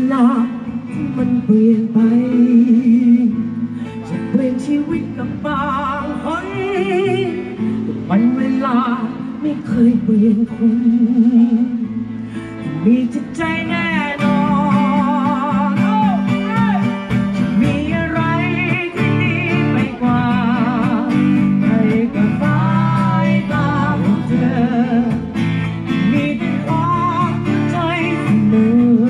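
Live acoustic music: acoustic guitar playing chords, with a singing voice carrying the melody over it.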